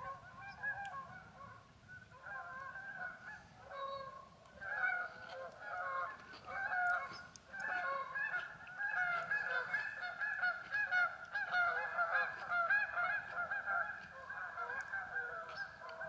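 A flock of about fifteen geese honking as they fly over, many birds calling at once in overlapping honks. The calls build to a dense, steady chorus about halfway through.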